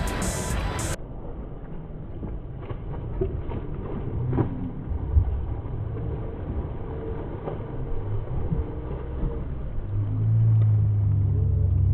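Background music cuts off about a second in. A hooked shovelnose ray then splashes at the water's surface over a low outdoor rumble, with a few short splashes and knocks. A louder low hum rises near the end.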